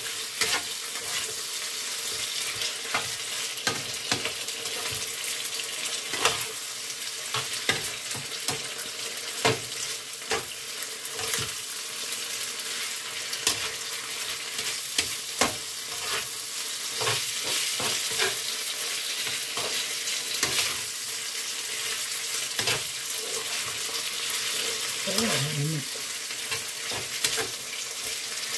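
Sausage and ham sizzling steadily in a frying pan, with frequent sharp clicks and scrapes from a spatula stirring them against the pan.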